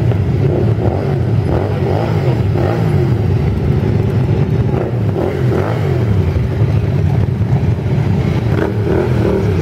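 A group of motorcycles running together, one bike after another revving and pulling away close by, so the engine pitch keeps rising and falling over a steady mass of idling engines.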